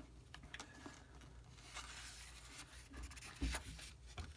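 Faint rubbing and rustling of paper as the pages of an old booklet are handled, with a soft thump about three and a half seconds in.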